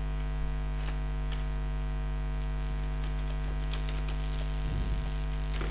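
Steady electrical mains hum with a stack of evenly spaced overtones, picked up by the recording microphone, with a few faint clicks from keyboard typing.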